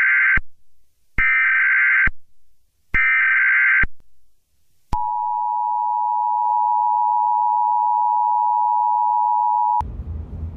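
A smartphone Wireless Emergency Alert sounding for a tornado warning: three loud, harsh beeps, then a steady two-pitch attention tone held for about five seconds. The tone cuts off abruptly near the end, giving way to the low rumble of a car cabin.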